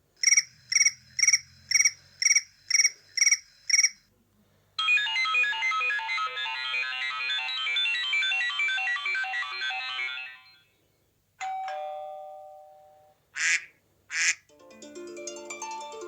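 iPhone classic ringtones played one after another. First comes a two-tone beep repeated eight times, about two a second. Then a quick run of pitched notes lasts about six seconds, followed by a single ringing tone that fades, two short chirps, and a falling sequence of chimes near the end.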